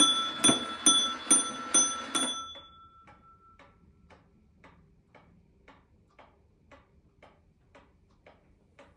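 Seth Thomas wall clock striking twelve: the last half-dozen quick ringing strikes, a little over two a second, die away about two and a half seconds in. Its movement then ticks on steadily, faint and even, about two ticks a second.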